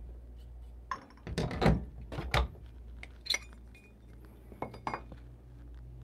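Stainless steel espresso filter baskets and portafilter parts being handled, giving a string of sharp metallic clinks and knocks.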